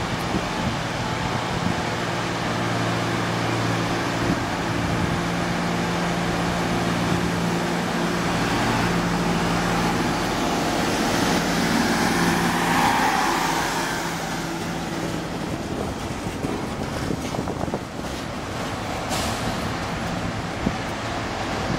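SA102 diesel railbus pulling out and passing close by: a steady engine drone with the rush of the wheels on the rails, loudest as it goes past about 12 to 13 seconds in, then fading as it runs away, with a few sharp clicks near the end.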